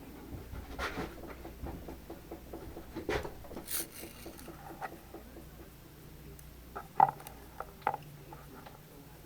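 Scattered light clicks, taps and rustles of small parts being handled and fitted, with a brief scrape-like hiss near the middle and a sharper click about seven seconds in.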